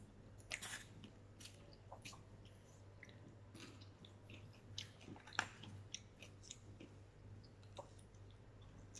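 A person chewing a mouthful of pizza, faint, with scattered small irregular mouth clicks.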